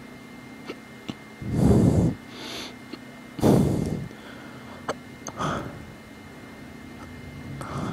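A person hiccupping: a few short, sharp hiccups, with two loud breaths about a second and a half and three and a half seconds in.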